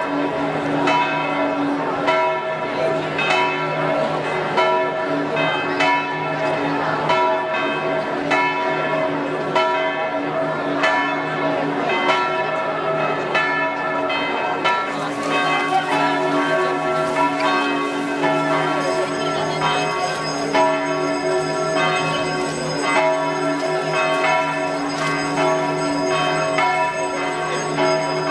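Large church bell hung on a wheel in a stone belfry, swinging and ringing a continuous peal of quick, regular strokes, each tone ringing on into the next.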